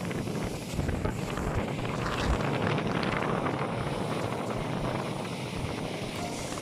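Wind rumbling on the microphone aboard a motorboat underway, with the boat's running noise beneath it; it grows louder about a second in.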